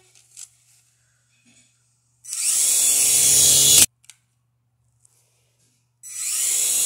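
Toy remote-control helicopter's electric motor and rotor blades whirring, twice, each run lasting a second or two; the first stops abruptly.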